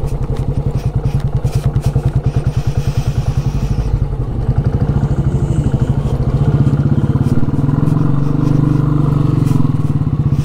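Royal Enfield Bullet's single-cylinder engine running at low speed over rough ground, a steady rapid thumping of about ten beats a second. A brief hiss comes about three seconds in, and the engine note grows stronger from about seven seconds in.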